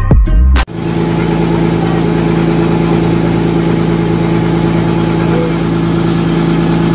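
Background music with drum hits cuts off suddenly less than a second in. Then a motor boat's engine runs at a steady, even pitch with a low drone.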